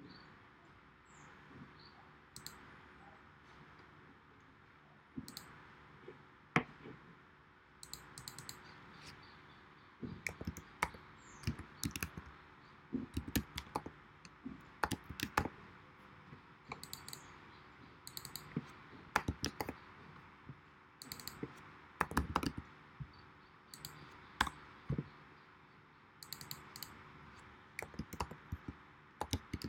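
Computer keyboard typing in quick runs of keystrokes, with a few scattered clicks during the first third before the typing starts, over a faint steady hiss.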